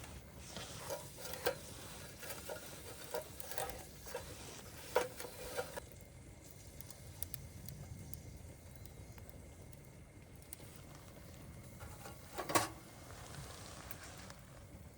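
Dak-galbi sizzling faintly as it fries, with a run of light clicks and taps over the first six seconds and one sharper knock about twelve and a half seconds in.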